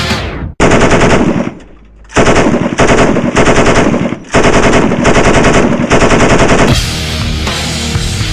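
Turret-mounted machine gun firing in three long bursts of rapid shots, with a short pause between each. Heavy rock music stops just before the first burst and comes back near the end.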